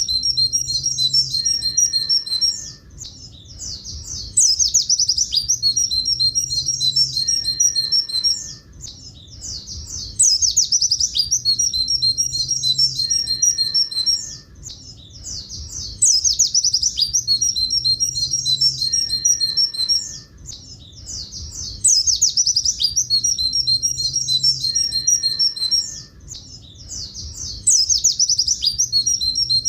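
Buxtoni white-eye (pleci) singing its long 'tulit tulit' horn-type song. Each high phrase opens with a fast twitter and runs into repeated two-note 'tulit' notes. The phrase comes back about every six seconds, with short pauses between.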